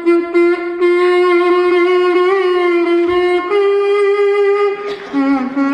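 A short melody played on a comb, a buzzy, reedy, kazoo-like tone of long held notes. The pitch steps up about halfway through and dips lower briefly near the end.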